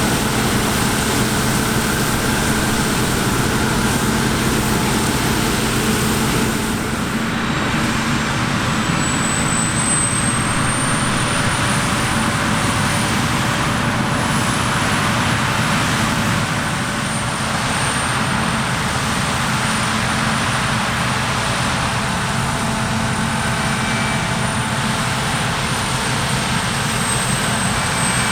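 Heavy diesel harvest machinery running steadily under load, a deep engine drone with a thin high whine above it that rises slightly about eight seconds in.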